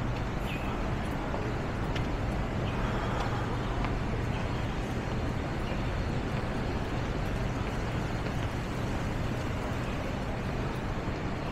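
Steady city street noise of traffic running, with a low steady hum underneath and a few faint clicks.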